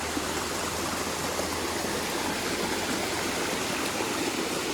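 Steady rushing of a waterfall and rocky hill stream, the flow swollen by recent rain.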